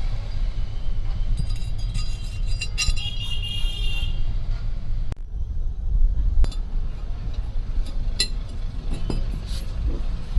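Metal parts clinking and ringing against each other for a couple of seconds, then a few sharp single knocks, over a steady low rumble.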